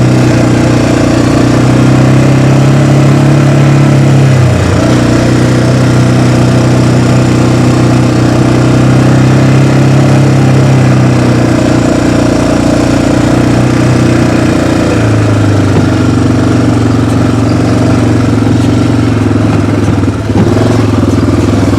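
Engine of a ride-on off-road vehicle running steadily while it is driven. Its note dips briefly about four and a half seconds in and settles lower about fifteen seconds in.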